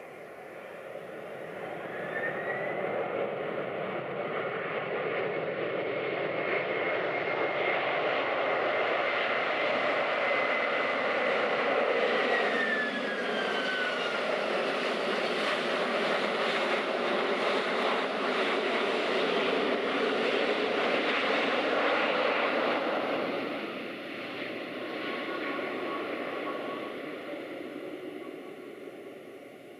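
Boeing 767-300's jet engines building to a loud roar within a few seconds of touchdown, as in reverse thrust on the landing roll. The roar holds for about twenty seconds, with a whine that drops in pitch partway through, then dies down near the end as the engines spool back.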